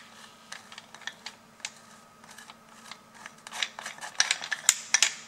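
Gloved hand fitting a part-worn grinding disc and its clamping nut onto an angle grinder's spindle, with irregular small clicks and scrapes of metal. The clicks come thicker about three and a half seconds in.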